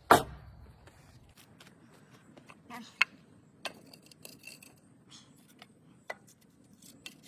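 Scattered sharp clicks and light rustling of things being handled, with one loud click at the very start and a few sharper ones about three, three and a half and six seconds in.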